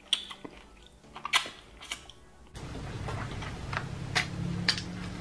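Close-miked eating of fried chicken: a few sharp crunchy bites in the first half, then, after an abrupt switch to a recording with a low steady hum, chewing with soft clicks.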